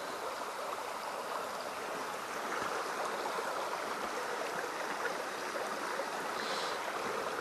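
A stream running, a steady, even rushing of water.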